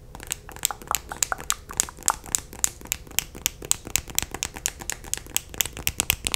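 Long fingernails tapping fast on a plastic lip-gloss tube close to the microphone: rapid, irregular clicks, several a second.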